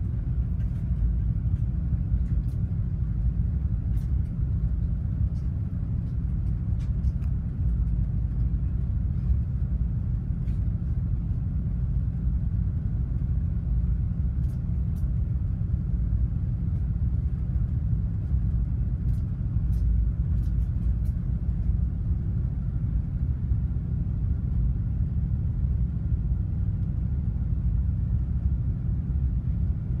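Steady low rumble heard from the open bridge wing of a container ship under way, with a faint steady higher tone and a few scattered faint ticks.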